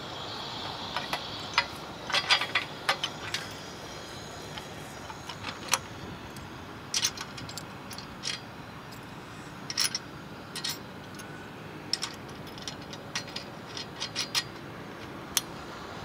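Scattered sharp metal clicks and clinks in small clusters as a bolt is fitted and tightened where an aluminium solar-mount leg meets its steel foundation bracket, over steady outdoor background noise.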